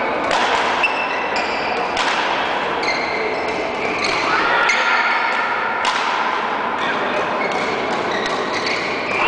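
Badminton rackets striking shuttlecocks, a string of sharp hits every half second to second that echo around a large sports hall, mixed with short high squeaks of court shoes on the floor.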